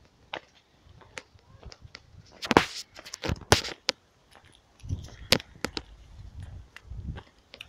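Footsteps crunching irregularly on a gravel path, loudest in a cluster about halfway through, with low bumps and rumble on the phone microphone later on.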